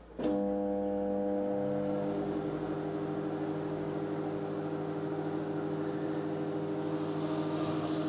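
Background music: a chord of held notes comes in suddenly with a click and changes to a new chord about two seconds in.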